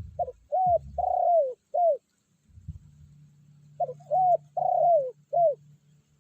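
Spotted dove cooing, the decoy bird calling to draw rival doves. Two phrases of four notes each, about two seconds apart, over a faint low hum.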